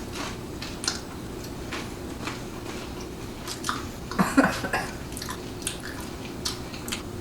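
People chewing and biting into sauce-dipped food: scattered soft clicks and mouth sounds, with a short, louder throat sound about four seconds in.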